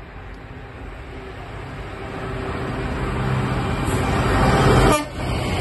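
A freight locomotive hauling a container train approaches at speed, its running noise growing steadily louder. About five seconds in, the sound drops suddenly as it reaches the camera, then carries on as the train rumbles by.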